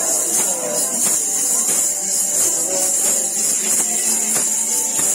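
Music with a steady beat and a continuous high jingling percussion.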